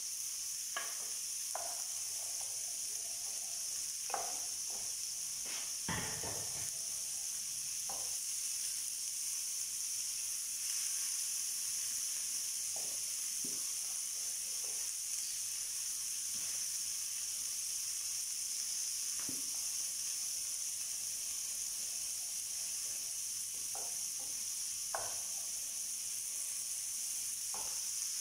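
Chicken and vegetable skewers sizzling steadily in a ridged grill pan, with a few short knocks and clinks of containers and utensils, the loudest about six seconds in.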